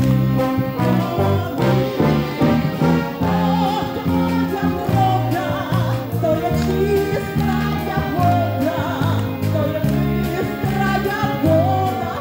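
Military brass band playing a well-known Ukrainian song live, with voices singing the melody along with it over a steady beat in the bass.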